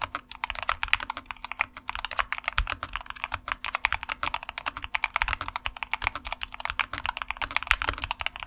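Typing sound test on a Keychron K2 HE keyboard with magnetic Hall-effect switches: fast, continuous keystrokes that sound muted and heavily damped, with no stabilizer rattle.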